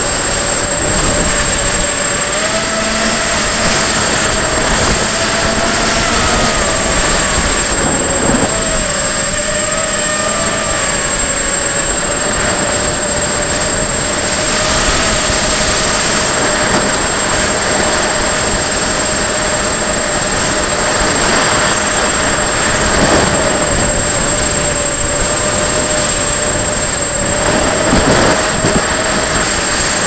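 Electric motors of a 250-size FPV racing quadcopter whining, the pitch wavering up and down with throttle, over heavy wind rush. A thin, steady high whistle runs underneath.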